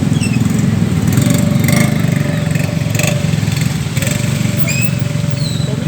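Small motorcycle engine running steadily with a rapid, even low throb, with a few short high chirps over it.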